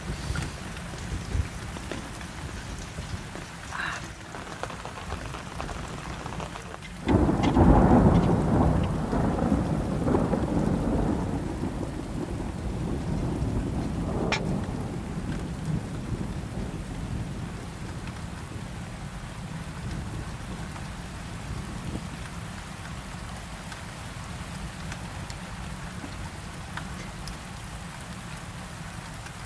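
Steady rain with a clap of thunder about seven seconds in, rumbling loudly and dying away over several seconds.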